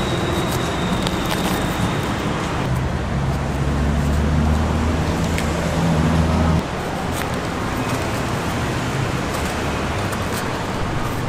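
Steady road-traffic noise with a low engine drone that stops abruptly about six and a half seconds in.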